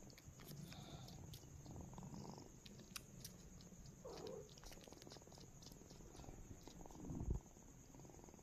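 Tabby kitten purring softly right against the microphone, with small scratchy clicks from fur brushing it and one louder bump near the end.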